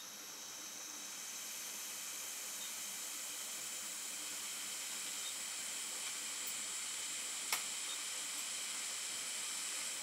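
Hot air rework station blowing a steady hiss over a burned USB port power switch chip on a MacBook logic board, desoldering it. There is a short click about seven and a half seconds in, and the hiss cuts off at the end.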